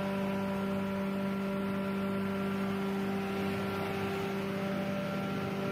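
A 30 kW rice husk grinder (hammer mill) driven by an electric motor, running steadily: an even hum of several steady tones over a constant rushing noise.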